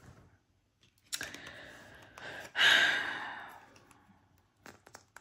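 A woman's long audible sigh: a breath drawn in, then let out loudly about two and a half seconds in and trailing off. It is followed by a few light clicks of tarot cards being handled near the end.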